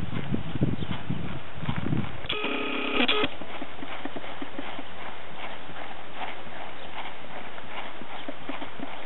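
Hoofbeats of a Thoroughbred horse walking on grass. About two seconds in, a brief electronic tone sounds for about a second, after which the hoofbeats go on as faint, even ticks.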